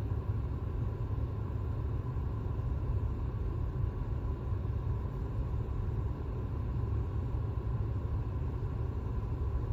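Steady low rumble of a car heard from inside the cabin, the car standing still with its engine running.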